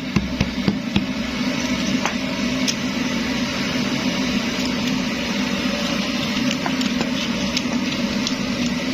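Pressurised kerosene (primus) stove burning with a steady rushing noise, with a few light clicks and knocks in the first second.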